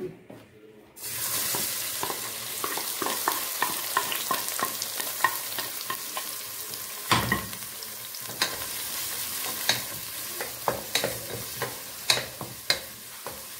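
Chopped onions hitting hot oil in a pot and sizzling, starting suddenly about a second in and frying steadily after that. A wooden spatula stirs and scrapes through them, making frequent light knocks against the pot.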